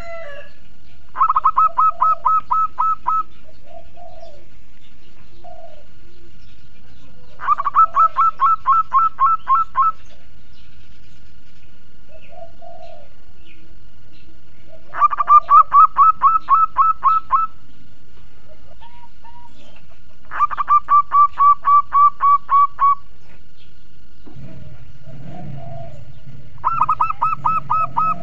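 Zebra dove (perkutut) singing its staccato cooing song: five bouts of rapid, evenly spaced notes, each about two seconds long, at roughly five notes a second.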